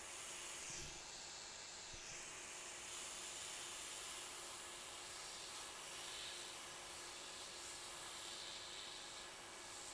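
Hot-air rework gun blowing a faint, steady hiss of air as it heats an iPhone logic board to lift off the CPU shield.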